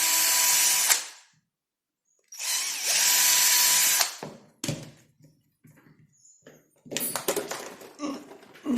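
Electric drill running in two short bursts, one of about a second and one of nearly two seconds, with a steady motor whine: a drill bit a couple of millimetres larger is widening a mounting hole bit by bit. Light clicks and knocks of handling follow.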